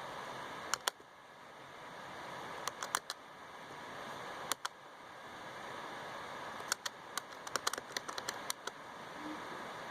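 Scattered sharp clicks from working a computer's mouse and keyboard, a quicker run of them near the end, over a steady microphone hiss.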